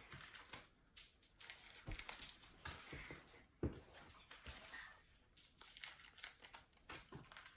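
Faint crinkling and rustling of plastic wrapping and card packaging being handled and opened, with scattered small clicks and a few soft knocks.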